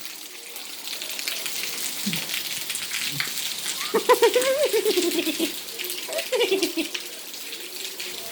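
Hailstorm: hailstones hitting the ground and nearby surfaces in a dense, steady crackle of many small impacts.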